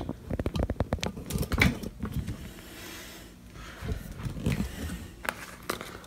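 Quick run of small clicks and rattles, then scattered quieter handling noises: a hex wrench being got out and fitted to open a fire alarm pull station for resetting.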